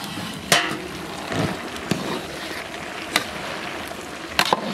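A few sharp metal clinks of a long ladle and lid against a large aluminium cooking pot as it is uncovered and the vegetable curry stirred, over a steady rushing noise.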